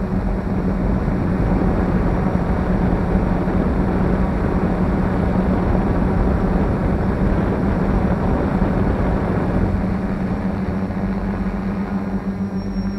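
F450 quadcopter's motors and propellers running in flight: a steady buzzing hum over a rushing noise that grows louder about a second in and eases off near the end.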